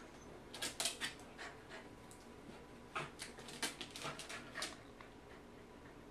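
Pembroke Welsh corgi's claws scratching at a homemade nail-file board of sandpaper-like stair-tread strips, filing her own nails. There are two quick bouts of scratching strokes, one about half a second in and a longer one about three seconds in.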